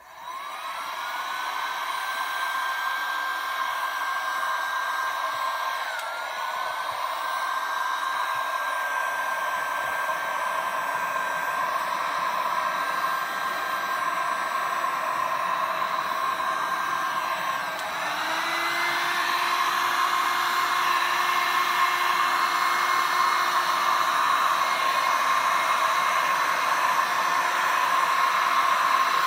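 Heat gun blowing hot air over wet epoxy resin: the fan whine rises as it is switched on, then holds steady. The pitch dips briefly about six seconds in, and again about eighteen seconds in, after which it runs louder.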